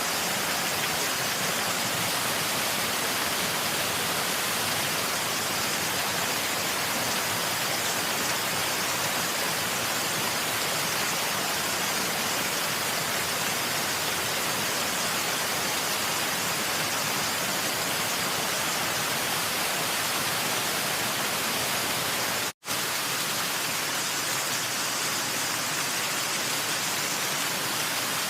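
Waterfall, a steady, even rush of falling water, cut off for a split second about four-fifths of the way through.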